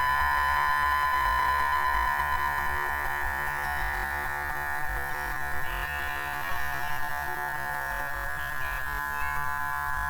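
A cartoon bunny-hop bounce sound effect slowed down enormously, stretched into a long drone of several steady, slightly wavering tones over a low rumble.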